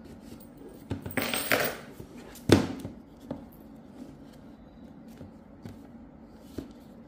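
Plastic shrink wrap on a cardboard retail box crinkling and tearing for under a second, about a second in. Then comes one sharp knock as the box is handled, followed by a few light taps and rustles.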